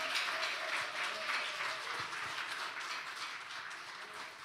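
Audience applauding, the clapping slowly dying down.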